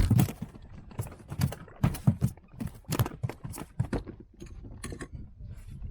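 A quick, irregular run of knocks and clicks, some sharper and louder than others, with no steady rhythm.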